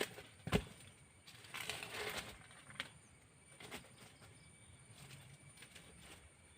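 A few faint knocks and clicks with a brief rustling scrape in between, against low background noise; no chainsaw engine is running.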